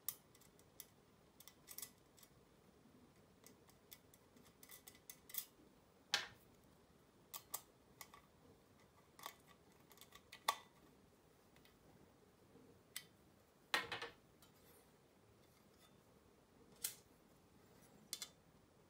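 Light, irregular metallic clicks and taps of the thin aluminium parts of an airplane weather vane being handled and fitted together by hand, with two louder clicks, one about a third of the way in and one about three quarters of the way in.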